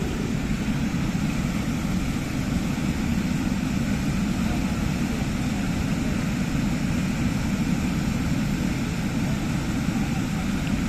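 Water pouring over a low weir and churning in the channel below: a deep, steady rushing noise that does not change.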